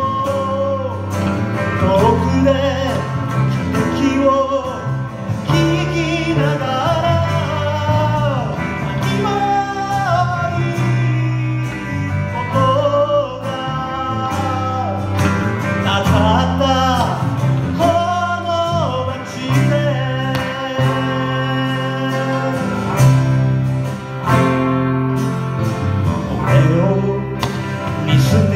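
A live band playing a song: a man singing over acoustic guitar, piano, bass guitar and electric guitar.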